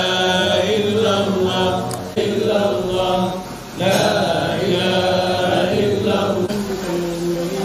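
Islamic dhikr chanting: voices drawing out long melodic phrases, with brief pauses about two and three and a half seconds in.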